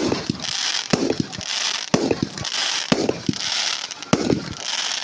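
Fireworks display: sharp bangs of shells bursting about once a second, each followed by a crackling hiss.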